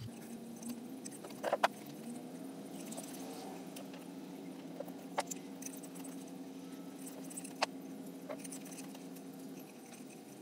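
Paracord rustling as it is wrapped around a pencil jig, with a few sharp clicks as the pencils knock together, over a steady low hum.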